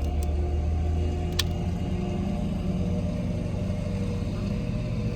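Steady low hum of a car heard from inside the cabin, engine and road noise, with one sharp click about a second and a half in.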